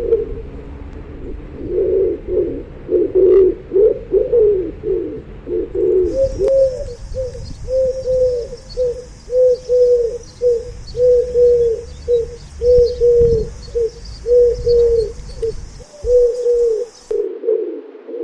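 Pigeons cooing. At first several coos overlap; about six seconds in this gives way to one steady series of short, arched coos, roughly three every two seconds, over a faint high hiss. That series cuts off near the end and overlapping coos return.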